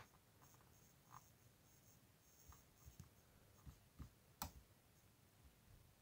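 Near silence with a few faint, scattered computer mouse clicks, the loudest a sharp click about four and a half seconds in.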